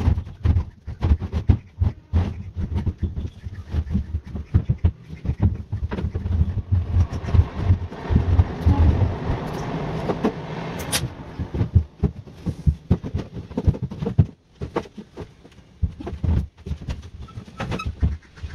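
A large 500-litre plastic water tank being shoved and handled: a run of irregular knocks and thumps, with a longer scraping stretch in the middle.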